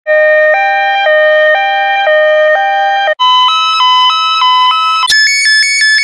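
Two-tone hi-lo ambulance siren sound effect, switching between a low and a high pitch about once every half second. About three seconds in it jumps higher in pitch and alternates twice as fast, and about a second before the end it jumps higher and faster again, sped up like a played-fast recording.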